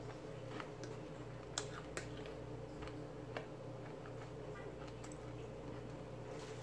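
Quiet eating sounds: a few faint clicks from chewing and a spoon working in a glass bowl of pinto beans, over a steady low hum.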